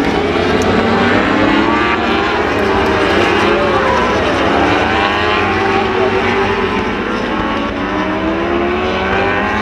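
World Superbike race bikes' engines running at high revs, several at once and overlapping, their pitch sliding up and down as they pass.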